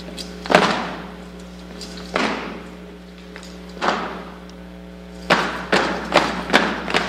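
Sharp thuds of boot heels striking a hard gym floor in drill steps, each ringing on in the big hall's echo: three single strikes about a second and a half apart, then a quicker even run of steps, two to three a second, from about five seconds in. A low steady hum lies underneath.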